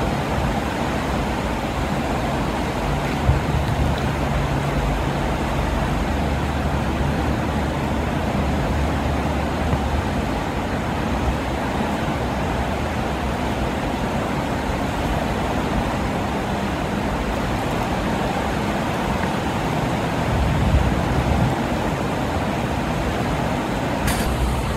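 Fast, churning floodwater rushing steadily past under a concrete bridge, a constant, even roar of water with a low rumble underneath.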